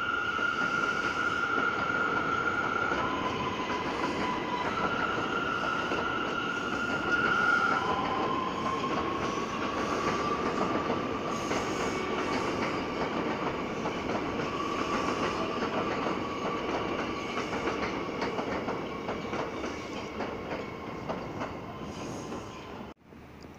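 R179 subway train running past on elevated track: wheels clicking over rail joints under a high electric whine that steps down and back up in pitch, then glides slowly upward. The sound fades as the last cars pull away.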